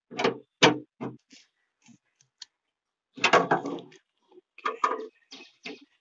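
Hand tools tightening the screws of a new boot-lid handle on the inside of a Maruti Celerio's tailgate: short, irregular clicks, knocks and scrapes, with a longer, louder scrape about three seconds in.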